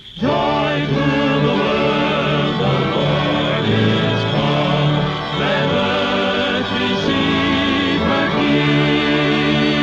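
Orchestral cartoon score with a choir singing long, wavering notes. The music starts abruptly just after a brief drop in level and holds steady and loud.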